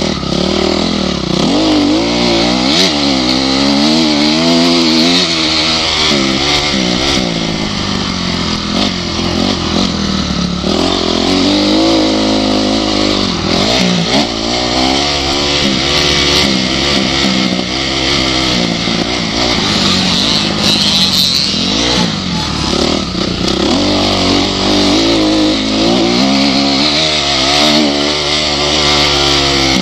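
Motocross dirt bike engine heard on board from the rider's goggles, revving up and dropping back again and again as she rides the track.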